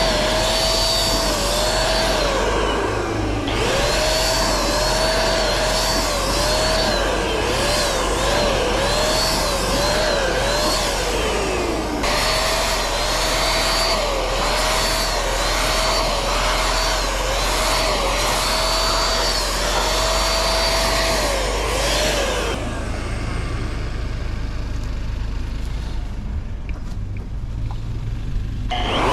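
Handheld electric paint sprayer (Penkiya-kun, household 100 V type) running: a steady motor whine with spray hiss, its pitch dipping and recovering again and again as it sprays. It winds down and restarts twice, winds down again about three-quarters of the way through, and starts up once more at the very end.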